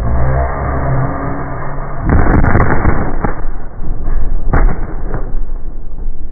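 Volley of muzzle-loading black-powder muskets fired together by a line of charging tbourida horsemen: a ragged crackle of shots about two seconds in, then a few straggling shots over the next three seconds. Before the volley, the loud rumble of the charge.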